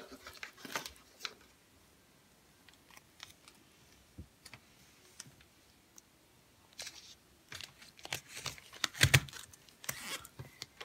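Fluffy cream slime being pressed and smoothed into a plastic tub by fingers: soft, irregular clicks and crackles. It goes nearly quiet for a few seconds in the middle, then gets busier, with one louder knock about nine seconds in.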